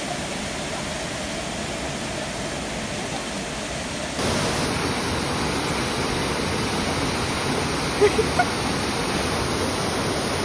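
Steady rush of water from a waterfall and stream, louder after a cut about four seconds in. Around eight seconds in, three quick short sharp sounds rise above the water.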